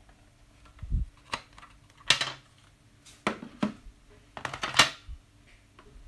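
A series of sharp clacks and clatters of hard objects, about five in all, the loudest about two seconds in and just before the five-second mark, over a faint steady hum.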